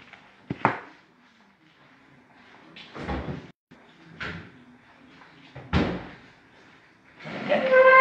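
Refrigerator door opened and shut, heard as a series of separate knocks and thumps, the heaviest a bang near the six-second mark. Near the end a short, steady horn-like tone sounds.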